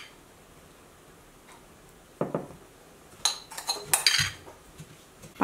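A metal spoon clinking and scraping against a ceramic bowl while scooping sticky rice: a few short clinks about two to four seconds in, after a quiet start.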